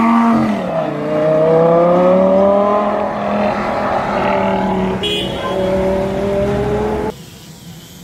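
Lamborghini Gallardo V10 revving as the car pulls away, then holding a steady, slowly rising engine note for several seconds. The sound drops away abruptly about seven seconds in.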